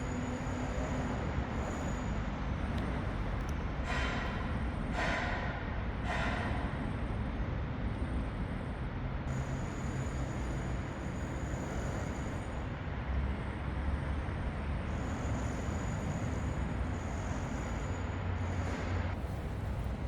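Steady low rumble of passing vehicles, with three short louder bursts about four to six seconds in.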